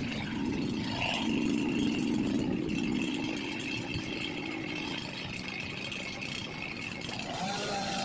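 An engine idling steadily, slowly easing off in level.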